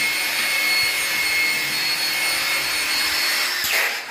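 Electric drill with a masonry bit boring into glazed ceramic wall tile, its motor running steadily with a high whine. About three and a half seconds in the trigger is let go and the motor winds down, falling quickly in pitch.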